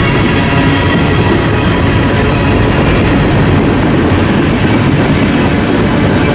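A train passing close by on the mainline, with the steady, loud running noise of wheels on rail.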